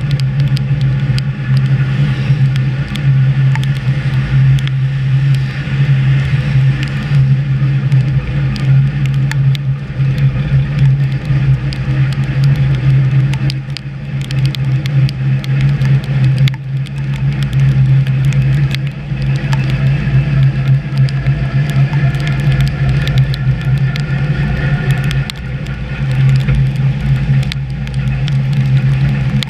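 HÉV suburban electric train running along the track, heard from inside the driver's cab: a loud steady low hum with fainter higher whining tones, and many short clicks and rattles throughout.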